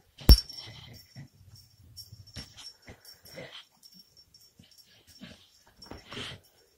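A bulldog snuffling and breathing with its face right at the microphone, in short scattered bursts. About a third of a second in there is one sharp knock, the loudest sound.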